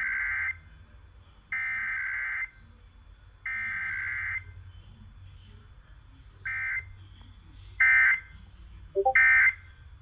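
Emergency Alert System SAME data bursts broadcast during a Required Weekly Test. Three one-second header bursts of digital data tones mark the start of the alert, followed by three shorter end-of-message bursts that close it, the last two louder.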